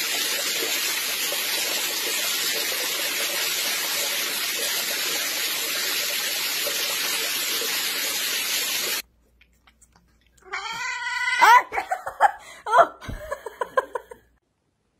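A steady, loud hiss that cuts off suddenly about nine seconds in. A cat then meows several times in short rising, wavering calls, with small clicks in between.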